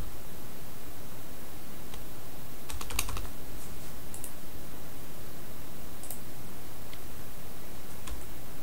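Computer keyboard keystrokes in a few short bursts, a quick run of several keys about three seconds in and single presses after, over a steady background hiss.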